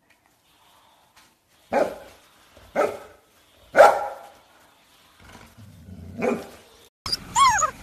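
Golden retriever barking four times, single loud barks about a second apart with a longer gap before the last. Near the end, a brief high falling cry.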